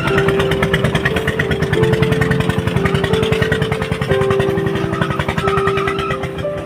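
Small engine of a motorised rice thresher running steadily, its rapid firing pulses even throughout.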